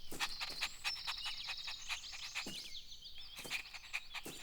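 Faint nature ambience of small birds chirping, many short high chirps with quick clicks among them.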